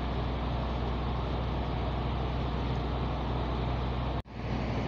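The engine of a wooden river taxi boat running steadily under way, a low drone, with water rushing along the hull. The sound drops out for an instant near the end.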